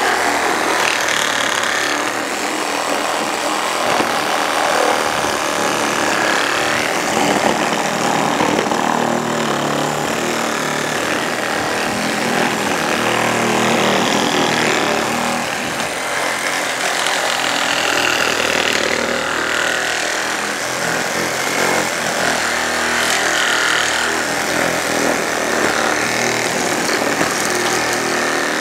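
JLD cordless reciprocating saw running under load, its stock blade sawing back and forth through a soft pine board with a steady, unbroken cutting noise.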